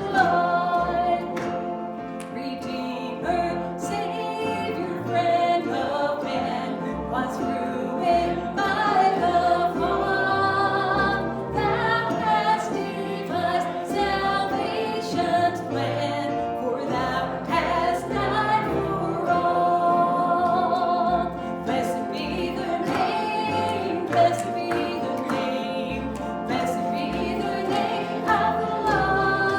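Worship music: a group of voices singing together over instrumental accompaniment, with a bass line and a steady beat.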